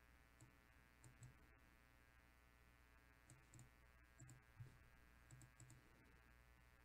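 Near silence with about a dozen faint, scattered clicks from a computer being worked, some coming in quick pairs, over a faint steady hum.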